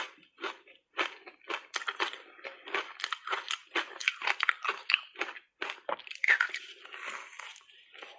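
A person biting and chewing reshaped matcha ice, a quick, irregular run of loud crunches and cracks.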